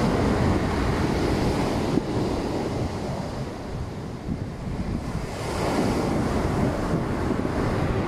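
Rough post-typhoon surf breaking on the shore, with wind buffeting the microphone. The rush eases a little about halfway through and swells again shortly after.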